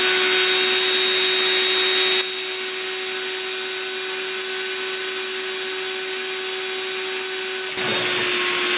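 Small electric air blower running steadily, inflating a latex balloon, with a steady hum at one pitch and a hiss of rushing air. It grows quieter about two seconds in and louder again near the end.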